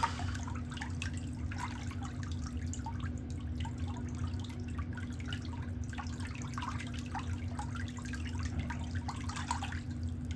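Irregular small ticks and drip-like sounds scattered throughout, over a steady low hum.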